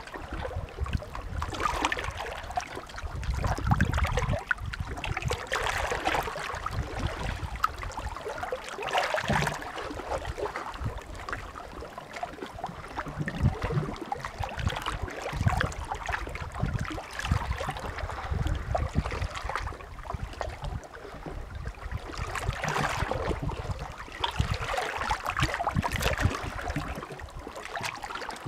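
Small Adriatic sea waves washing and lapping at the shore, in irregular surges every few seconds with a low rumble under them.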